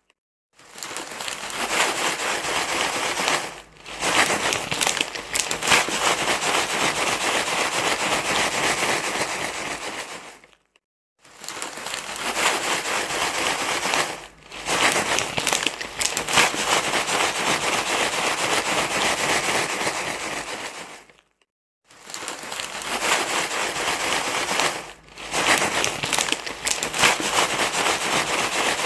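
Loud, continuous crinkling and crumpling rustle, in stretches of about ten seconds broken by short silences twice, once about 11 seconds in and again about 21 seconds in, with a brief dip in the middle of each stretch.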